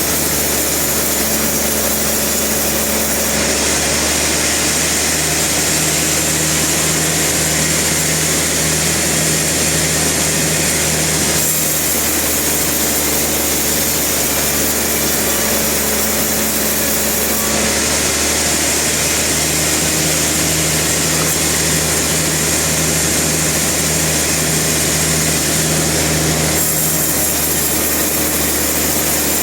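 Sawmill saw and machinery running steadily and loudly. The sound turns brighter and hissier twice, from about three seconds in and again just past the middle, each time for about eight seconds.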